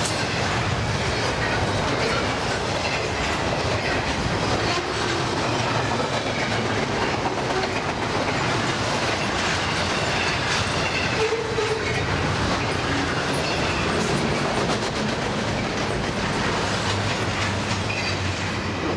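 Double-stack intermodal container well cars of a freight train rolling past, steel wheels running over the rails in a steady, loud rolling clatter.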